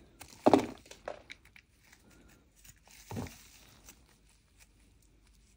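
A snap-off utility knife blade scraping the surface of a lump of dry edible clay, with faint scratching and two louder crunchy strokes, about half a second in and about three seconds in.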